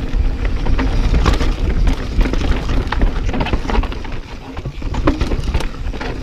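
Mountain bike riding down a wet, rough trail: a steady low rumble under frequent sharp clicks and knocks from the bike and tyres over the ground.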